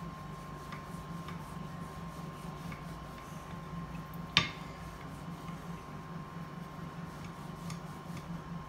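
Wooden rolling pin flattening slices of white bread on a marble counter: faint soft ticks and rubbing over a steady low hum, with one sharp knock about four seconds in.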